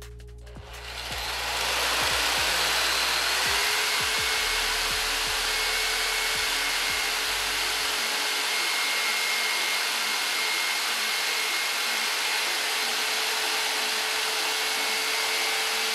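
Black & Decker BDEJS600C corded jigsaw making a 45° bevel cut through a wooden board. The motor and blade come up to speed about a second in, then run steadily with a constant whine as the blade cuts.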